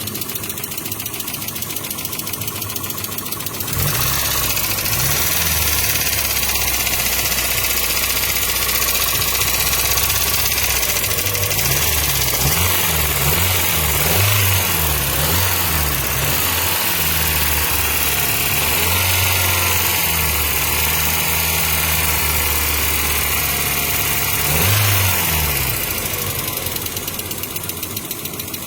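1995 Mazda Miata's 1.8-litre four-cylinder engine running with a fast, even ticking clatter, the unexplained noise the owner is asking about. A few seconds in a deeper engine drone joins; the engine is blipped several times in the middle and once more near the end before the drone falls back.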